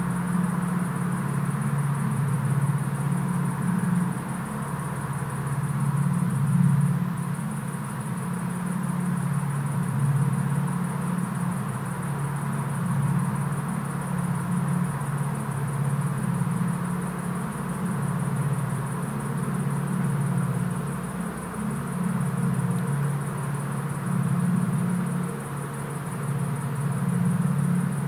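A steady low droning hum that slowly swells and fades, with a thin high hiss above it.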